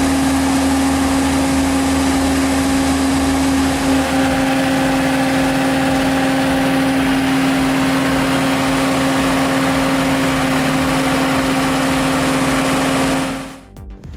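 Firewood processor's engine running steadily under power, with a strong, even whine held at one pitch. It cuts off abruptly near the end.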